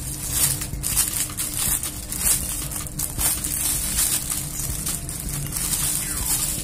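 Clear plastic bag crinkling and rustling irregularly as a folded pashmina hijab is unwrapped and pulled out of it.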